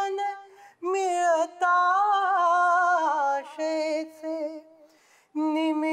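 A man singing a Marathi song unaccompanied, in long held notes, with a short break early on and a breath pause shortly before the next phrase starts near the end.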